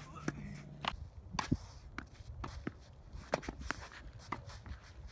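Tennis practice on a hard court: a string of sharp, irregularly spaced knocks from racket strikes and ball bounces, with footsteps scuffing on the court surface.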